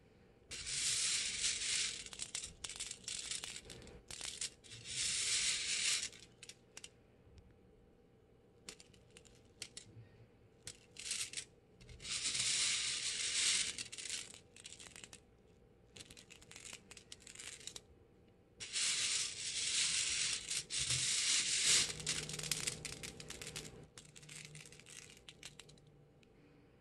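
Freshly roasted coffee beans rattling against each other and a wire-mesh strainer as a hand stirs and scoops them. The clatter comes in bursts of one to several seconds with short pauses, the longest run near the end.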